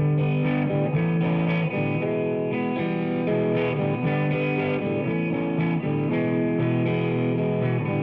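Background music: a distorted electric guitar playing a steady rhythmic part.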